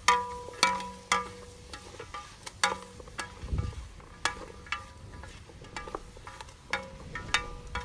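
Metal utensil clinking against a metal cooking pot, each knock ringing briefly, at irregular strikes of about one or two a second, as the soup is stirred over a campfire.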